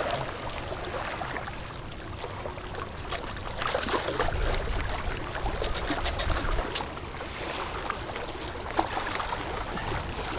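Wind buffeting the microphone outdoors, a steady rushing with a low rumble that swells for a few seconds in the middle, plus a few faint clicks.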